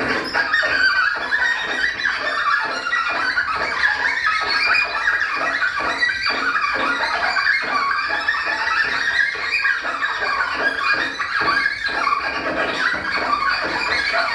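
Improvised solo cello, played live: a dense, unbroken run of short, rapid bow strokes, several a second, with the sound sitting high up rather than in the instrument's low register.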